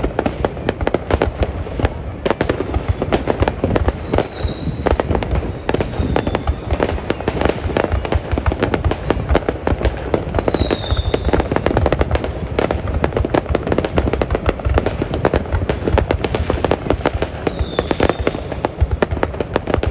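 Fireworks display: a dense, continuous volley of bangs and crackles, with a short falling whistle heard three times.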